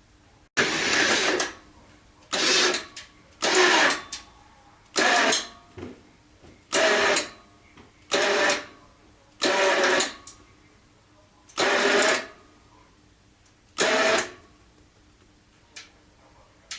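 Winch tensioning a bolt-hanger pull-test rig in about ten short mechanical bursts, each lasting a second or so, every one to two seconds.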